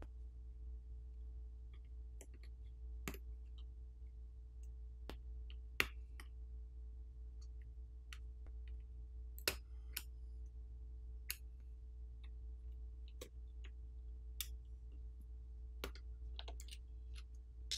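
Scattered small clicks and taps of a plastic pry pick on a smartphone's opened internals as flex-cable connectors are pried up, over a faint steady low hum.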